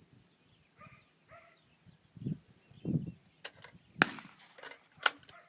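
Gunfire at a shooting range: two dull thumps, then three sharp cracks spread over about a second and a half.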